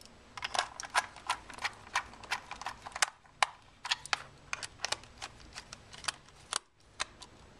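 Small, sharp, irregular clicks, about three or four a second, of a precision screwdriver turning a small screw into the plastic housing of Fat Shark Predator FPV goggles.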